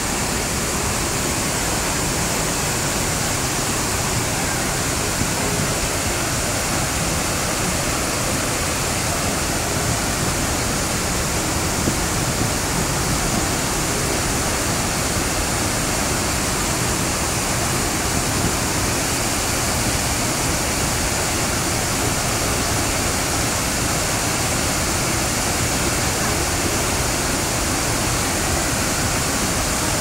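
Gundichaghagi waterfall on the Musala river pouring down in full flow: a loud, steady, unbroken rush of falling water.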